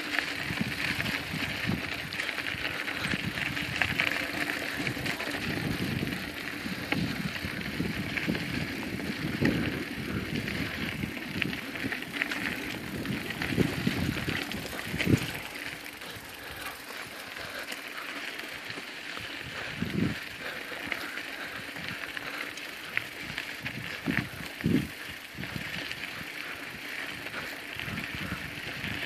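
Mountain bike rolling along a dirt trail: steady tyre and riding noise, with scattered thumps and rattles as it goes over bumps.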